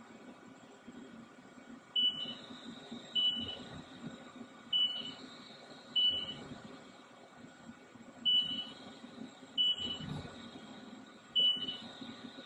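Haas VF2SS CNC vertical mill machining razor base plates: a short, high-pitched ring comes about every one to two seconds as the cutter enters a part, each one fading out into cutting noise, over the machine's steady hum.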